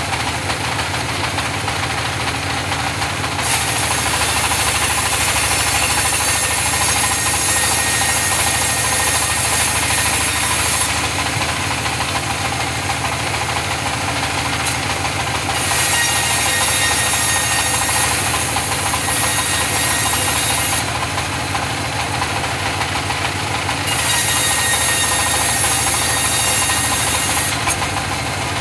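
Engine-driven sawmill saw running steadily while sawing mahogany timber. Three times a louder, hissing cutting noise rises over the drone: for about seven seconds from the start, for five seconds in the middle, and for three seconds near the end.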